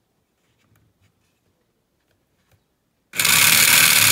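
A few faint clicks of wire leads being handled, then about three seconds in the 12 V DC motor of a portable tire inflator compressor starts abruptly and runs with a loud, steady whir. The motor turns, but its piston pump puts out no air.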